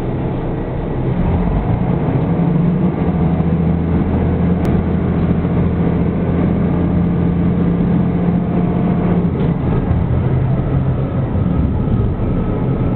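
Diesel railcar engine heard from inside the cabin, pulling the train away from a station; a steady low engine note that changes about nine seconds in.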